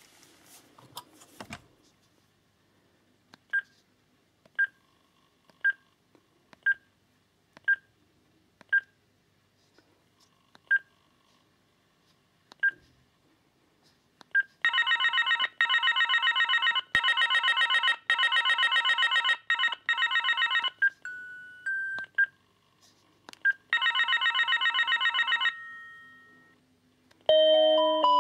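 Philips B141 DECT cordless handset: short key beeps about once a second as its menu buttons are pressed, then the handset's ringer sounding a fast trilling ring for several seconds as the ring volume is set, broken by a pause with a few more beeps. Near the end a melodic ringtone begins.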